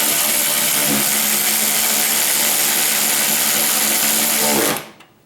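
12-volt cordless 3/8-inch electric ratchet wrench running steadily, set to the tightening direction to drive a taillight screw back in. Its motor runs with an even whine, then stops abruptly near the end.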